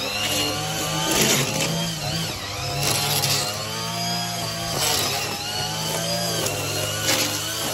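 Gas-powered lawn equipment engine running steadily, its pitch rising and falling as the revs change, with a few sharp knocks.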